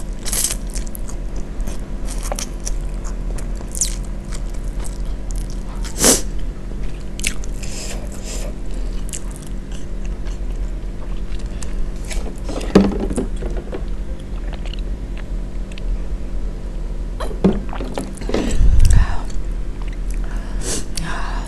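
Close-miked eating: wet chewing, mouth smacks and slurps of cheese-sauced instant fried noodles, as many short sharp clicks. A steady low hum runs underneath, and a louder breath hits the microphone near the end as she reacts to the spicy heat.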